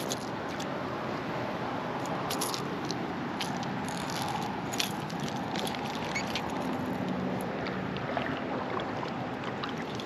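Steady hum of road traffic, with scattered light clicks and rattles, a few bunched in the first half.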